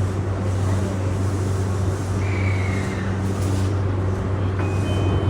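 Inside an E235-1000 series electric train car: a steady low hum with a noisy rumble. About two seconds in there is a brief high whine that falls slightly, and near the end two steady high tones start.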